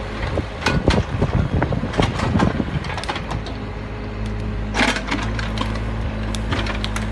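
Mini excavator's engine running steadily, with scattered knocks and scrapes of its bucket working against brickwork and loose bricks in the first few seconds and again about five seconds in.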